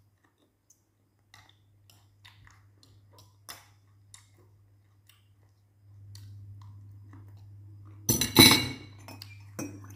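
Quiet chewing with small clicks of a spoon in a glass bowl, then about eight seconds in a loud clatter and scrape of the spoon against the glass bowl. A low steady hum comes in about six seconds in.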